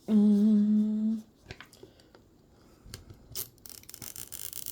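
A person hums a short, steady note for about a second. Then come a few small clicks, and near the end the crinkly tearing of a plastic wrapper being peeled off a Mini Brands capsule ball.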